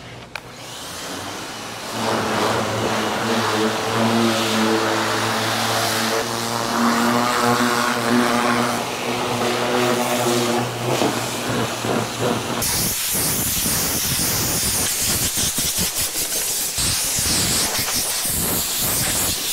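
Pressure washer rinsing foaming degreaser off car paint. The washer's pump motor runs with a steady hum under the hiss of the water spray. About twelve seconds in, the hum cuts off abruptly, leaving a harsher, uneven spray hiss.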